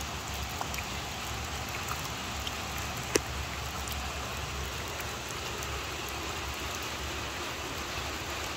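Rain falling steadily, with a single sharp tap about three seconds in.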